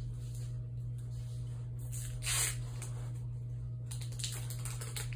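A steady low hum, with one short hiss about two and a half seconds in and light handling clicks near the end.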